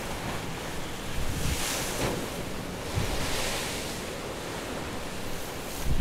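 Stormy sea waves breaking and washing against a harbour wall: a steady rushing surf hiss that swells twice, about a second and a half and three seconds in, with wind rumbling on the microphone.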